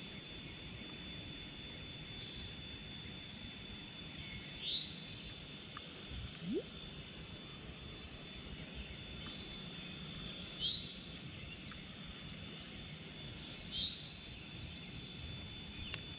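Outdoor pond ambience with a bird repeating a short rising call about every three seconds, over a faint steady high tone and quick regular ticking calls in the background.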